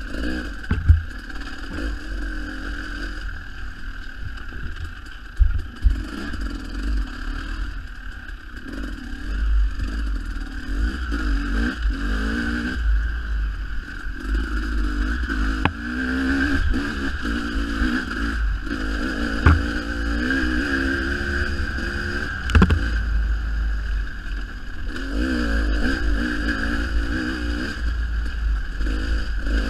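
Dirt bike engine running on a trail ride, its revs rising and falling, over a heavy low rumble, with several sharp knocks.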